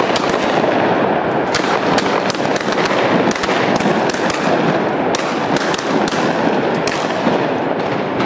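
A long run of firecrackers going off, a steady dense crackle with sharp louder cracks several times a second at irregular intervals.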